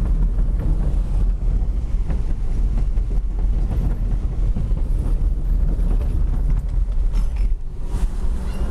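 Car crossing a wooden plank bridge deck, heard from inside the cabin: a steady heavy rumble of tyres on the planks, with wind noise. About seven and a half seconds in the rumble drops away as the car comes onto ordinary pavement.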